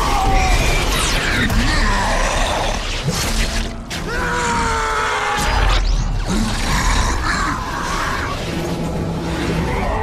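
Film battle soundtrack: dramatic music mixed with crashes, booms and shattering impacts, with a heavy low surge about midway.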